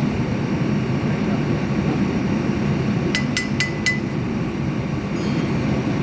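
Four quick, sharp metallic clinks with a short ring, steel hand tools striking the steel housing and bolts of a backhoe's core milling attachment, over a steady low rumble.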